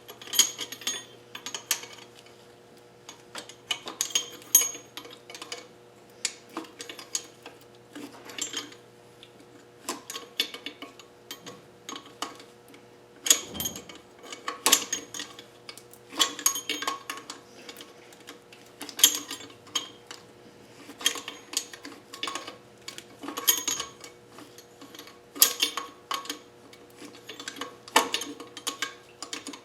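Hand tools on engine metal: repeated bursts of short metallic clicks and clinks, coming in irregular clusters, as wrenches turn and knock against the engine parts.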